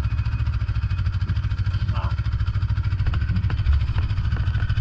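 Snowmobile engine idling steadily close by, with a few faint clicks over it in the second half.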